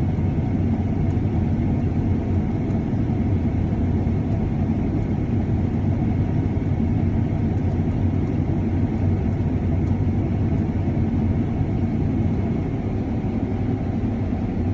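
Combine harvester running steadily while cutting wheat: a continuous, even machinery drone with a faint steady whine above it, the machine feeding well.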